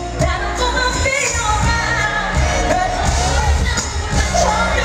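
Live R&B concert music: a female singer's vocals through the PA over a bass-heavy band backing, with the melody gliding up and down.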